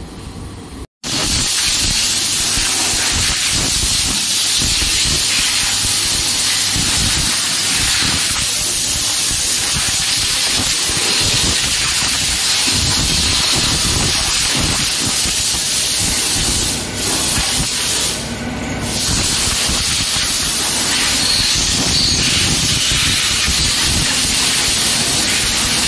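Loud, steady hiss of a high-pressure jet being played over a motorcycle during its service wash, starting abruptly about a second in and breaking off briefly twice about two-thirds of the way through.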